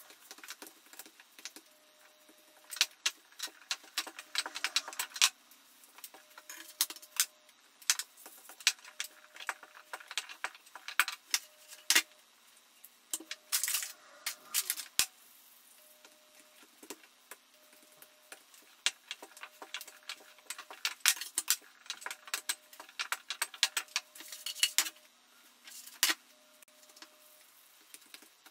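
Sped-up kitchen handling sounds: a rapid, irregular run of clicks, knocks and rustles as tortilla dough is pressed flat by hand, flour is sprinkled from a paper bag and a wooden rolling pin works the dough on the worktop.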